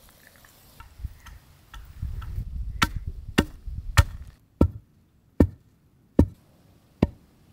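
Pestle pounding dried palmyra sprouts with garlic in a mortar to grind them into flour: a few soft knocks at first, then sharp, even strikes about one every three-quarters of a second.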